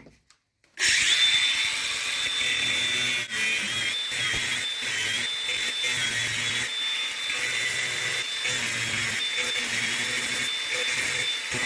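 DeWalt angle grinder starting up just under a second in and cutting through the rusted, seized toilet seat fixings, which cannot be undone. It gives a steady high whine whose pitch dips slightly now and then, and it stops near the end.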